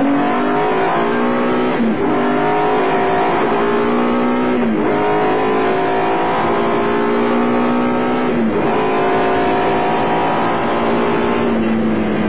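Nissan Hardbody off-road race truck's engine heard from inside the cab, accelerating hard and climbing up through the gears. Its pitch rises in each gear and drops at upshifts about two, five, eight and a half and twelve seconds in.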